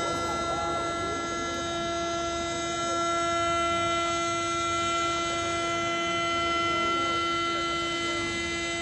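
A loud, steady horn-like tone held at one pitch without a break, over faint crowd voices.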